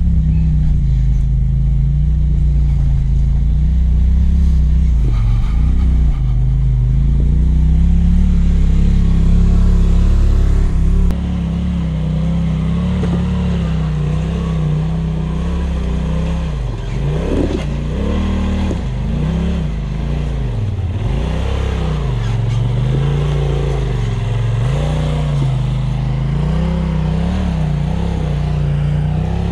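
Polaris RZR side-by-side engine crawling over rocks at low, fairly steady revs for the first eleven seconds or so, then the sound changes abruptly. After that, a RZR engine's revs rise and fall repeatedly with throttle blips as it climbs a rock ledge.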